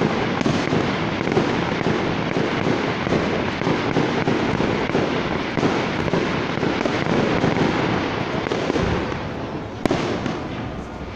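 An aerial fireworks display going off in a dense, continuous crackle of rapid bangs and pops. It eases off a little near the end, with one sharp single bang shortly before it stops.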